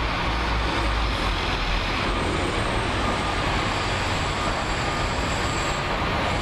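Diesel engines of hi-rail maintenance trucks running steadily: a constant low rumble under an even rushing noise.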